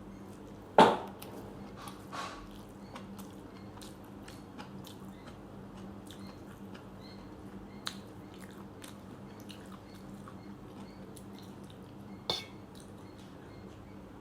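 A person eating rice and curry: faint wet mixing and chewing sounds with many small clicks, over a steady low hum. A few sharp knocks against the dishes stand out, the loudest about a second in, a smaller one a second later, and another near the end.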